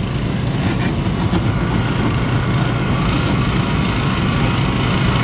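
Small gasoline engine of a portable hydraulic rescue-tool power unit running steadily at an even speed, with a single light click about a second in.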